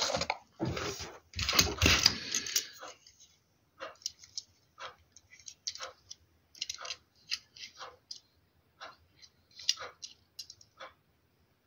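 Handling noise: a few seconds of rustling and crinkling, then scattered light clicks and taps as a small model car is picked up and turned in the fingers.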